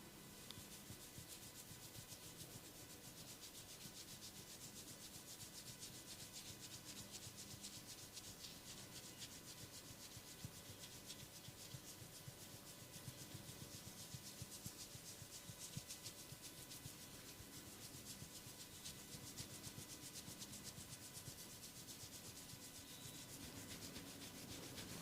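Fingers rubbing and scratching briskly through hair on the scalp during a head massage: a faint, fast, continuous scratchy rustle.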